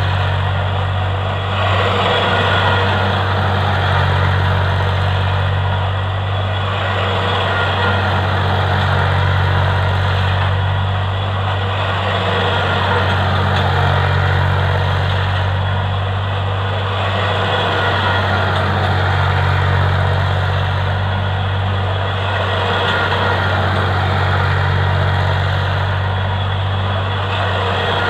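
Diesel tractor engine running steadily as the tractor drives in circles over spread rice straw, threshing it. The engine gets louder and quieter about every five seconds as the tractor goes round.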